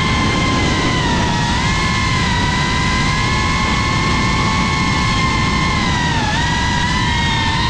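FPV cinewhoop drone's motors and propellers whining steadily in smooth forward flight. The pitch wavers slightly and dips briefly about six seconds in, over a rushing noise.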